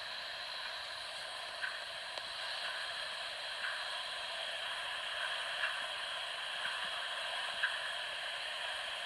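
Amplified apartment background noise: a steady hiss with a faint click about every two seconds.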